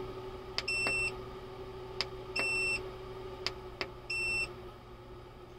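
Keypad of a 3000-watt Growatt hybrid inverter beeping three times, one short high beep about every two seconds, as its DOWN button is pressed to step through the settings menu. Light button clicks fall between the beeps, over a faint steady hum.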